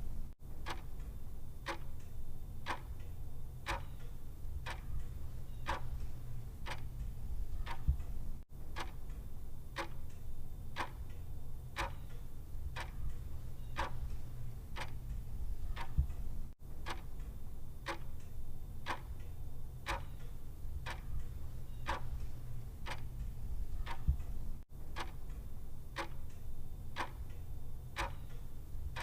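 Clock ticking steadily at about two ticks a second, over a low steady hum, with a brief dropout in the sound every eight seconds or so.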